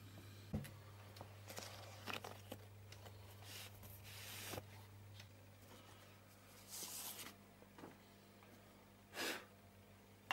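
Vinyl records being handled: several brief rustles and scrapes of record sleeves and a disc being slid out, over a low steady electrical hum.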